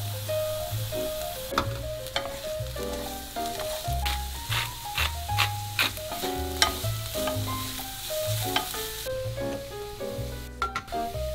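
Diced onion and grated carrot sizzling in a frying pan, with a run of sharp clicks near the middle, over background music. The sizzle drops away about nine seconds in.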